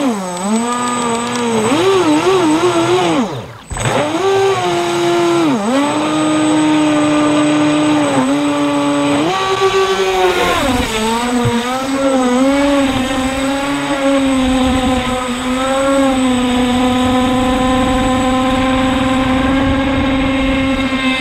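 Electric motor of an AquaCraft MiniMono RC speed boat running at speed: a whine whose pitch rises and falls with the throttle, then holds steady on a straight run, over the hiss of water. After a brief break about three and a half seconds in, it is heard from a camera mounted on the boat's cowling.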